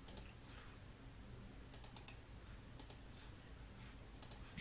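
Clicking at a computer: four short clusters of sharp clicks spread across a few seconds, over a faint low room hum.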